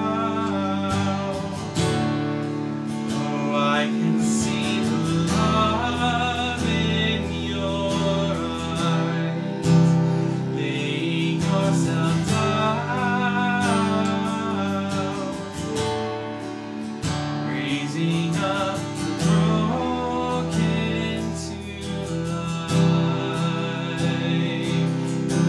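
A worship song performed live: a man singing over a strummed acoustic guitar, with a bowed cello holding long low notes beneath.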